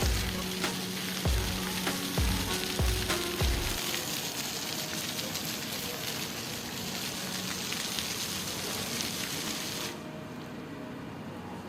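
Water from fountain jets splashing down, a steady hissing spray, with a few low thumps in the first few seconds. About ten seconds in, the high part of the hiss drops away.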